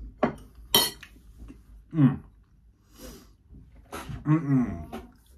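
A metal utensil clicks against a ceramic bowl twice in the first second, the second click sharp and bright. Short wordless vocal sounds from the eater follow at about two seconds and again near four seconds, and these are the loudest things heard.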